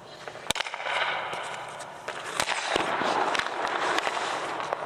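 Hockey pucks being shot at a goalie on an indoor ice rink: several sharp cracks of sticks striking pucks, the loudest about half a second in, over a scraping hiss on the ice.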